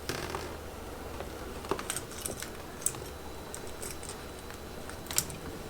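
A few faint, sharp clicks and small handling noises from electrical wires, butt connectors and hand tools being handled, over a low steady hum.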